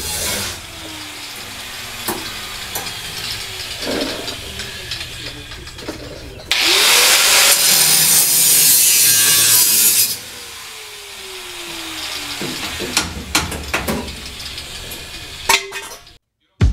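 Handheld grinder spinning up and cutting into rusted sheet steel in the van's battery tray area for about three and a half seconds, then winding down, with quieter grinding and another wind-down earlier. A run of sharp metal knocks follows near the end.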